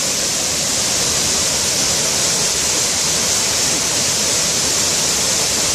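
Waterfall rushing: a steady, loud, even roar of falling water.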